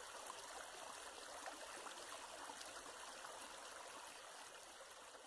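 Faint, steady hiss with a few soft ticks, close to silence.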